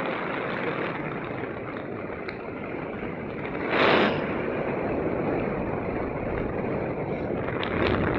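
Steady rush of airflow over the camera's microphone while flying under a paraglider, with a louder gust lasting about half a second, around four seconds in.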